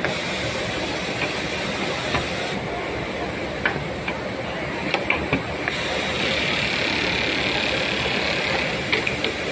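Industrial J-stitch sewing machine running under a steady hiss, with a few sharp clicks in the middle and again near the end; the hiss turns brighter about six seconds in.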